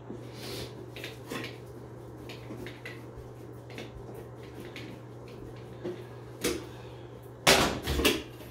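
Small clicks and scrapes of the long bolts of a bathtub overflow cover plate being unscrewed, over a steady low hum, then a louder clatter of handling near the end.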